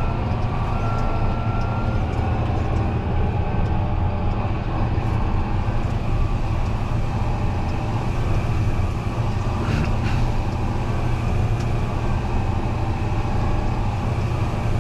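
Fendt 933 Vario tractor running steadily as it drives across the field, heard inside the cab as a constant low hum. A thin high whine sounds over the first couple of seconds, and there is a short click about ten seconds in.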